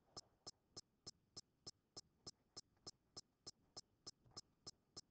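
Faint, evenly spaced ticking, about three ticks a second, against near silence.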